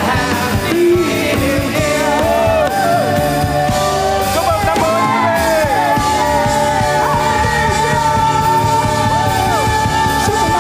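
Band music with singing voices, loud and continuous.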